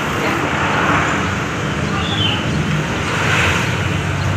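Steady background noise of road traffic, a constant rumble and hiss.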